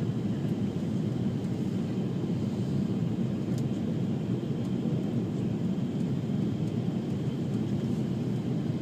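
Steady rush of jet airliner engine and airflow noise heard from inside the passenger cabin, low and even, during the approach to landing.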